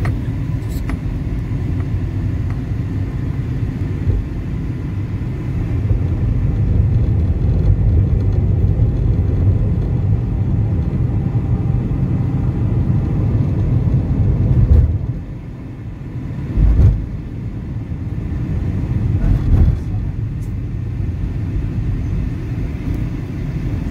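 Low, steady road and engine rumble heard inside a moving car's cabin. It eases off briefly about 15 seconds in, and a couple of short low thumps follow.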